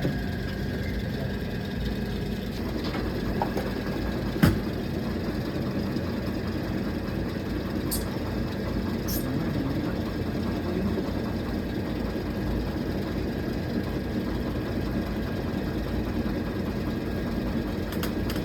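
Ice cream factory machinery running with a steady low hum and a faint high whine, and one sharp knock about four and a half seconds in.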